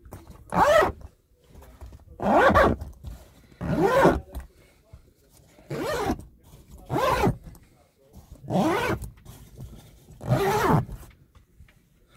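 Zip on the fabric wall of an Eriba Puck caravan's pop-up roof being pulled along in seven short rasping strokes, one every second and a half to two seconds.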